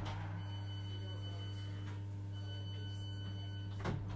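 Inside a Class 319 electric multiple unit at a station stop: a steady low electrical hum with thin, steady high-pitched tones over it that drop out briefly about halfway. There is a single knock near the end.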